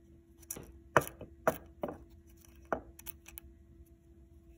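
About five sharp knocks and clicks in the first three seconds, the loudest about a second in: small pieces of broken engine metal and the aluminium crankcase being handled. A faint steady hum runs underneath.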